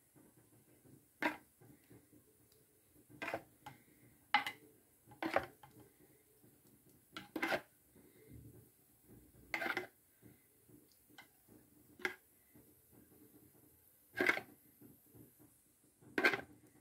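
Metal spoon clinking against dishes while sauce is ladled over fish in a glass baking dish: about nine short, sharp taps, one every second or two, with faint wet scraping between them.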